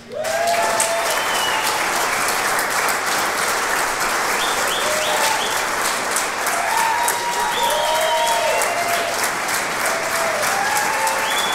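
Audience applause that breaks out all at once and holds steady, with scattered cheers and whoops over it.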